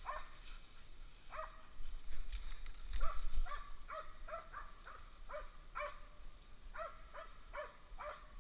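Russian-European laika barking a moose, about a dozen short, separate barks at an uneven pace, each rising and dropping quickly in pitch.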